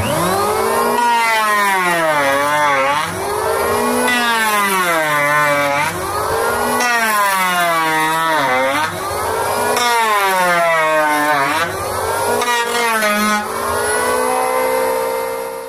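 Wood planer machine running, its motor pitch sinking and recovering every two to three seconds as it is loaded and unloaded.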